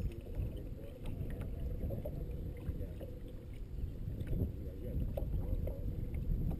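Small waves lapping and slapping against the hull of a bass boat, with wind buffeting the microphone as an uneven low rumble and a faint steady hum underneath.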